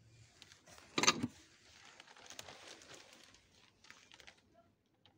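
A single sharp clack about a second in, as a porcelain gratin dish is set back down among the others in its box. Soft rustling and handling follow.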